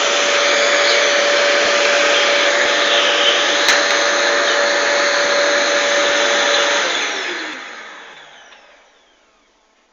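Vacuum cleaner running with a steady whine, then switched off about seven seconds in, its motor spinning down with a falling tone to silence over about two seconds.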